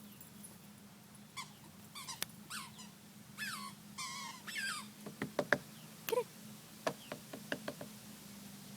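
Pet squeaky toy squeezed in a run of high, wavering squeaks, followed by a few short, sharp squeaks and clicks.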